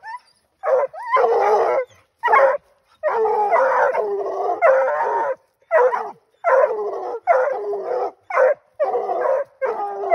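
Coonhounds barking at a treed raccoon: a steady string of loud barks and drawn-out bawls, about one a second.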